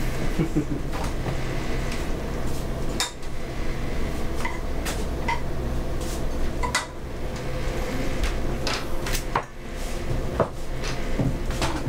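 Kitchen clatter of dishes, pots and utensils being handled: scattered sharp knocks and a few short clinks over a steady low hum.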